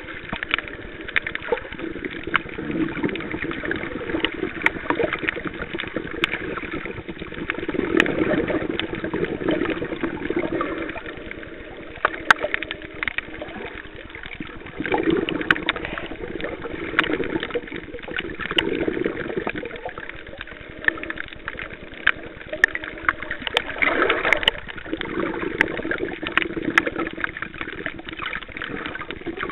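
Muffled underwater water noise heard through a camcorder's sealed underwater case: sloshing and gurgling that swells and fades, with many small clicks and crackles throughout.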